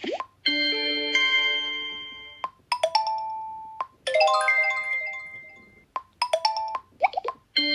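Xiaomi Redmi 9A phone speaker playing a string of short built-in alert tones, chimes and quick note runs, previewed one after another; each fades or is cut short as the next begins, with brief ticks in between.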